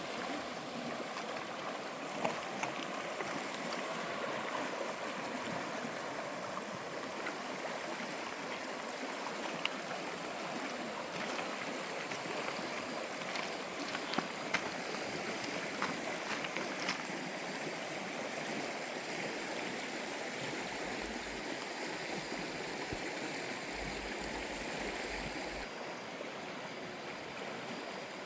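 Valley stream flowing, a steady watery rush with a few faint clicks and splashes here and there.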